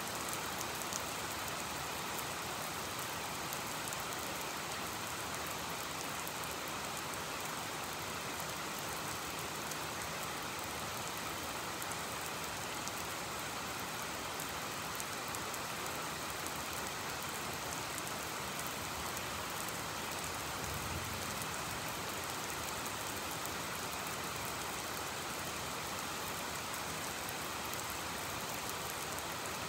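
Rain falling steadily, an even hiss with no letup. A brief low rumble comes about two-thirds of the way in.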